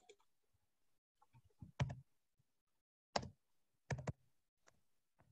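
A few faint, sharp computer clicks in small clusters, one pair about two seconds in, a single click past three seconds and another pair near four seconds, made while slides are being advanced.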